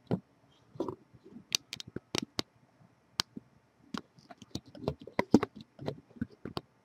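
Irregular sharp clicks and light taps of hands working at the plastic screen bezel of an Asus U30JC laptop, with the loudest cluster about five seconds in.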